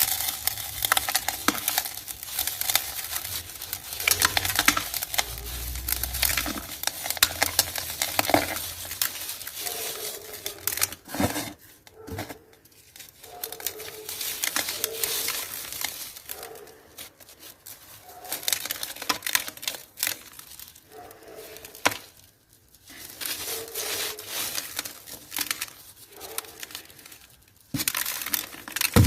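Dry, gritty cement crumbling, a dense run of crunchy crackles that comes in stretches with short pauses between them.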